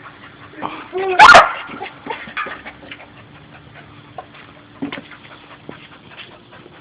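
Pit bull going at a lawnmower: one loud bark about a second in, amid scattered small knocks and scrapes of the dog biting and pawing at the mower.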